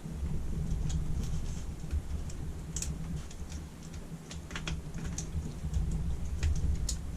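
Irregular light metallic clicks and taps of a screwdriver working at a stuck screw on a Weber carburettor body, over a steady low hum.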